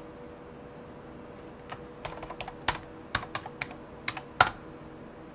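Computer keyboard typing: a quick run of key clicks from about two seconds in, then one louder single keystroke near the end.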